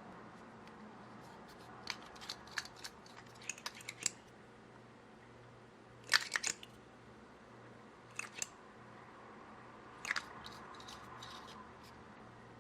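Crisp crackles and clicks from slime and makeup being handled, coming in four short clusters with quiet gaps between them.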